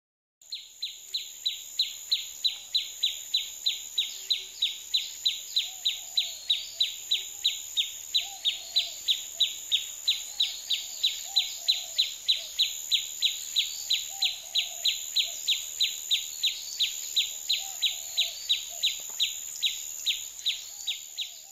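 Insects chirping in an even rhythm, about two and a half chirps a second, over a steady high insect drone. Faint bird calls sound further off.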